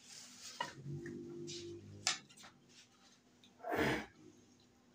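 Plates and bowls being moved around on a table: a sliding, scraping sound about a second in, and a louder dull bump near the end as a dish is set down.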